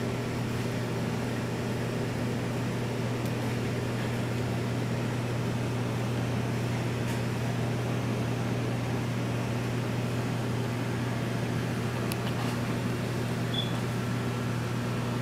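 Steady low hum and hiss of running reef-aquarium equipment, with a few faint ticks near the end.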